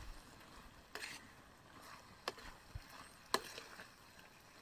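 Metal ladle stirring chicken fry in an iron kadai: a handful of faint, scattered clicks and scrapes of metal on metal.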